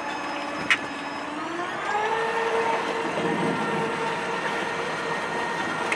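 A motor running with a steady hum that rises in pitch about a second and a half in, as it speeds up, then holds a steady note. A single sharp click sounds just under a second in.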